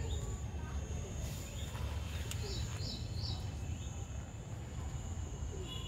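Garden ambience: a steady high-pitched insect drone throughout, a few short bird chirps about two and a half to three seconds in, and a low rumble of wind on the microphone.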